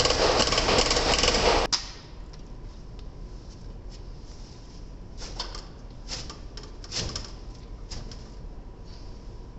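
Truck's diesel engine running loud and steady, which cuts off suddenly about two seconds in. It is followed by scattered light clicks and knocks of hands and tools on metal as the fuel tank is refitted under the truck.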